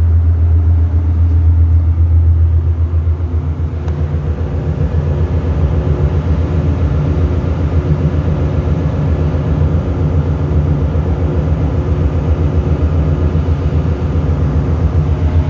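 Steady low drone of running ship's engine-room machinery, heard from inside an opened main-engine cylinder liner. The pulsing in the sound grows denser about four seconds in.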